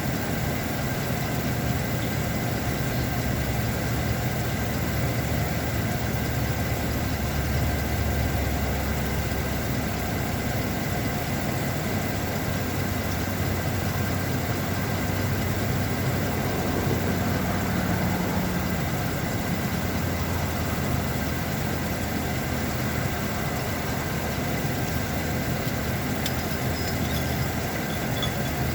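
A vehicle engine idling steadily, with a low rumble and a constant hum.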